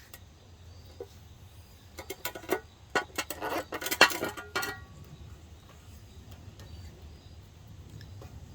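Vinyl electrical tape pulled off its roll and wrapped around a wooden tool handle. It makes a run of sharp crackling clicks for a few seconds, then goes quiet.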